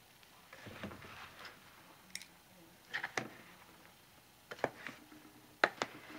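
A spoon stirring thick, crumbly hot-process soap in a crock pot: soft scraping with a scattering of sharp clicks and knocks at irregular intervals as the spoon hits the pot.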